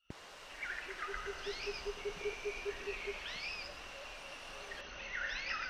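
Outdoor nature ambience: birds calling in swooping, rising-and-falling whistled phrases about every two seconds, over a faint steady insect drone. A low call of about a dozen even pulses, about five a second, runs through the first half.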